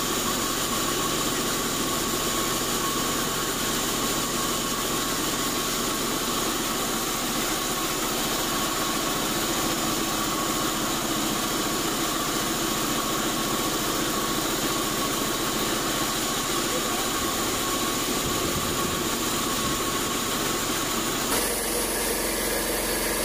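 Large band sawmill running steadily with a constant high whine, its blade sawing an old acacia plank fed on the carriage. Near the end the sound switches abruptly to another steady machine hum.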